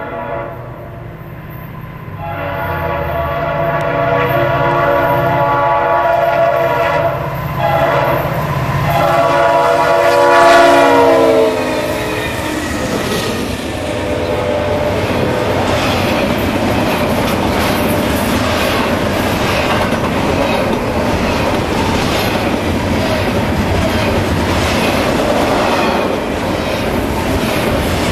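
Norfolk Southern EMD SD70ACe locomotive #6920 sounding its horn in long blasts, with one short break about seven seconds in, over its diesel rumble. The horn's pitch drops as the locomotive passes, after about twelve seconds. Then a long train of double-stack intermodal cars rolls by with a steady rolling noise and wheels clicking over the rail joints.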